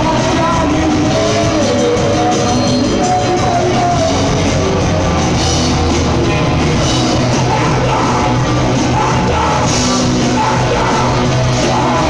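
A rock band playing live at full volume: electric guitars, keyboards and drums in a dense, unbroken wall of sound.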